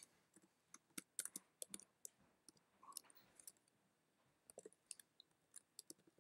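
Faint computer keyboard typing: scattered keystroke clicks in short irregular runs, with a pause of about a second midway.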